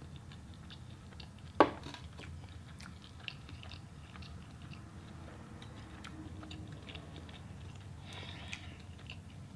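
Mouth-close chewing and biting of food, with small crunches and clicks and one sharper click about a second and a half in, over a low steady hum.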